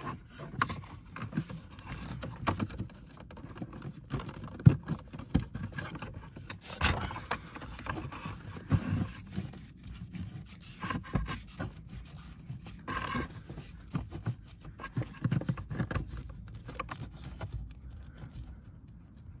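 Gloved hands sliding a pleated cabin air filter into its plastic housing and working the housing: irregular scraping and rubbing with light plastic knocks and clicks.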